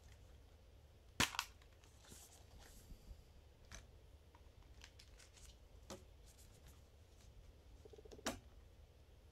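SteelBook Blu-ray case being opened with a sharp double click, then a few light clicks of handling on the plastic disc tray. Another sharp click near the end as a disc is pressed off its centre hub.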